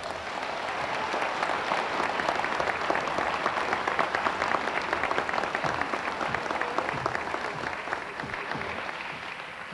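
Audience applauding: dense clapping that builds over the first couple of seconds and tapers off near the end.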